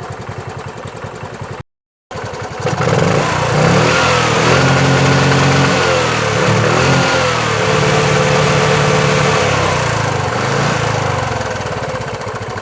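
Bajaj Chetak 4-stroke scooter's single-cylinder engine idling, then, after a brief break in the sound, running louder with its speed rising and falling a few times. The engine is warm and just beginning to run unevenly, the heat-related misfire the owner is chasing.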